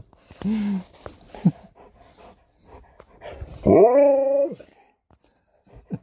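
Alaskan Malamute vocalizing: a short whine about half a second in, a brief yelp around a second and a half, then one long drawn-out "woo" near four seconds that rises and then holds, like the dog saying "now".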